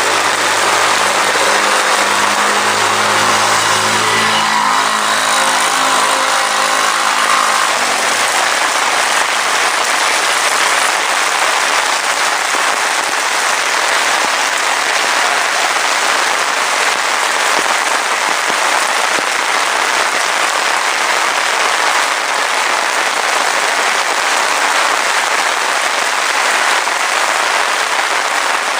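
Heavy rain falling steadily. For the first eight seconds or so, a motor vehicle's engine runs under the rain, then fades out.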